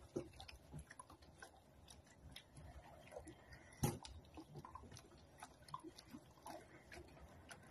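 Faint handling sounds while clothes are being ironed: light rustles and small scattered clicks, with one sharper knock about four seconds in.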